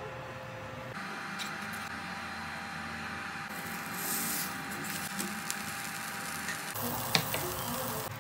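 A tortilla wrap sizzling in an oiled frying pan while a metal spatula presses and scrapes it, the hiss briefly brighter about four seconds in. A few sharp clacks of the spatula against the pan just after seven seconds, the loudest one then.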